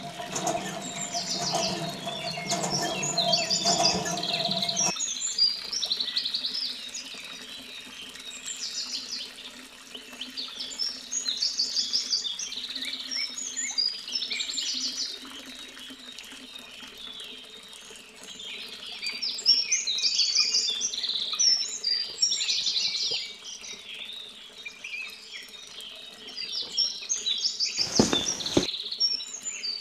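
Many small birds chirping, short calls overlapping throughout. For the first five seconds a lower rushing noise runs under them and stops abruptly, and there is one brief knock near the end.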